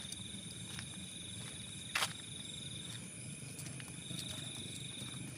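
Night insects chirring in a steady high trill that drops out just before three seconds in and comes back about a second later, over a low rumble. A single sharp click about two seconds in.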